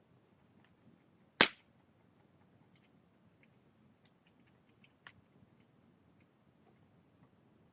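One loud, sharp crack about one and a half seconds in, followed by two fainter clicks a few seconds later over faint scattered ticking.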